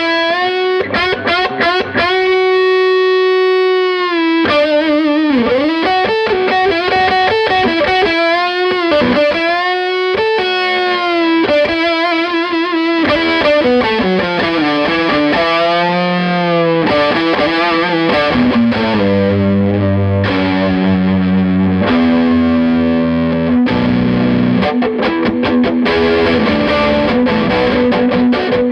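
Electric guitar played through a Fender Champ 12 amplifier on its overdriven dirty channel, a distorted tone. Sustained single-note lead lines with bends and vibrato, moving to lower held notes and chords about two-thirds of the way through.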